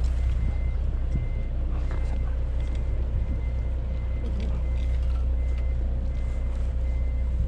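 Steady low mechanical rumble with a constant hum, and a few small clicks and rustles of handling.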